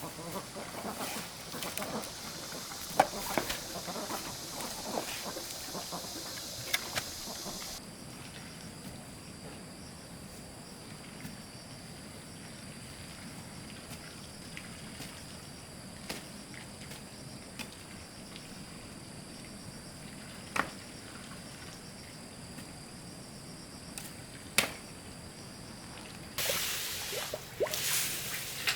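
Outdoor ambience with a steady high insect drone, scattered sharp clicks and knocks, and a louder rush of noise starting near the end.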